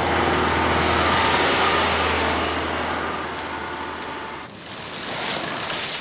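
Car driving by, with a steady low engine hum and road noise that eases off after about four and a half seconds. After that a brighter hissing noise takes over.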